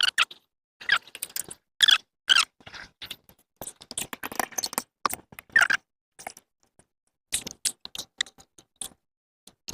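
Window trim moulding being fitted by hand: irregular short squeaks, scrapes and clicks, with a pause of about a second past the middle before they start again.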